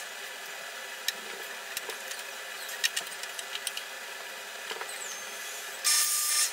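Oscillating spindle sander running with a steady hum and scattered light clicks. Near the end a Brazilian cherry frame piece is pressed to the sanding belt, and the sound turns suddenly louder and harsher with a high steady tone for about half a second.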